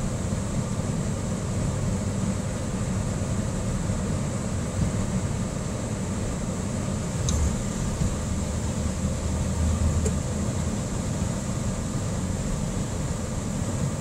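Steady engine and tyre noise heard from inside the cabin of a four-wheel-drive vehicle on all-terrain tyres, driving on a snowy road, with a steady high hiss over it. Two faint clicks, about seven and ten seconds in.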